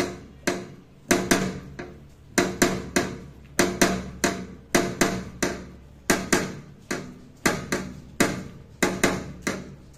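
Background music of short struck, ringing notes in a repeating pattern of quick groups, which stops near the end.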